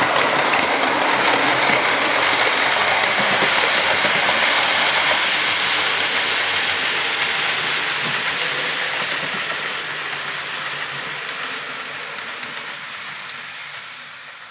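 Hornby Railroad LNER P2 model locomotive and its rake of model coaches running on OO gauge track: a steady rolling rumble and rail clatter that slowly fades away over the second half.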